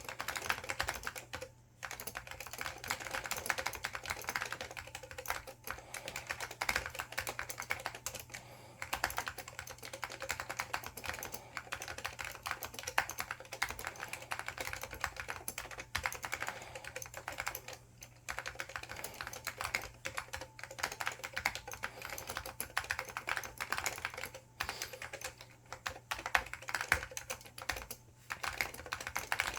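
Fast, continuous typing on an IBM 5556-003 keyboard with linear Alps SKCL Green switches and ABS doubleshot keycaps: a rapid run of keystroke clicks broken by a few short pauses.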